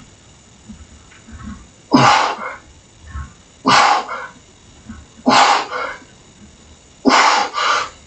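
A man's short, forceful exhalations with the effort of each rep of bodyweight dips: four hard breaths about a second and a half apart, the last a quick double.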